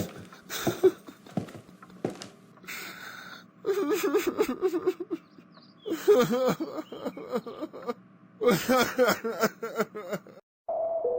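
An animated character's stock crying sound effect: a few short knocks, then three bouts of wailing sobs with a wavering pitch. A steady electronic tone starts just before the end.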